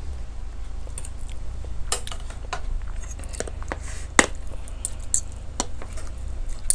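Metal spoon and fork clinking and scraping on a ceramic plate while picking apart fish, a string of sharp clinks with the loudest about four seconds in. A low steady hum runs underneath and stops near the end.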